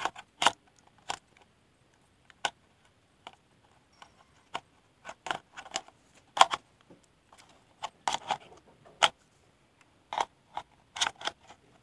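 Irregular clicks and taps of hard plastic as a drone's battery and plastic parts are handled, with short quiet gaps between them.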